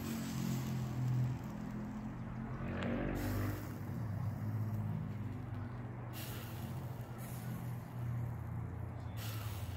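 A steady low engine hum like a motor vehicle running, with a short hiss every few seconds.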